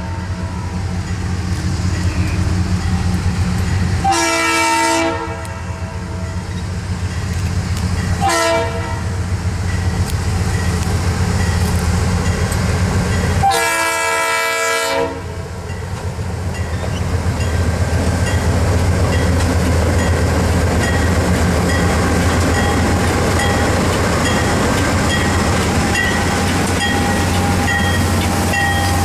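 A diesel passenger train's multi-chime air horn on its lead locomotive, an EMD E8A, blows three blasts: long, short, then long. This completes the long-long-short-long grade-crossing signal. Then the locomotives' diesel engines rumble close by, and the passenger cars roll past with their wheels clicking over the rail joints.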